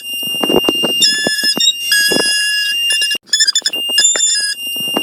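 A harsh electronic collage: a steady shrill alarm-like tone with beeps at several pitches stacked on top, and clattering noise bursts underneath. The whole pattern loops about every four and a half seconds.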